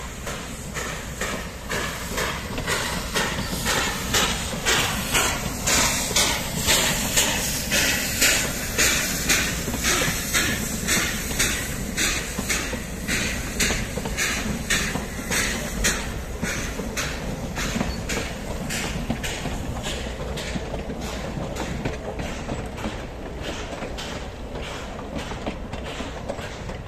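Narrow-gauge steam locomotive hauling a train past, its exhaust chuffing in a steady rhythm of about two beats a second, loudest a few seconds in and easing off toward the end.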